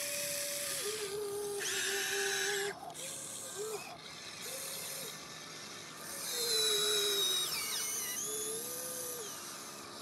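Small electric motors of an RC toy excavator whining in short stop-start runs as the boom, arm and bucket move and the body swings round. There is a brief hiss about two seconds in and a higher, rising-and-falling whine partway through.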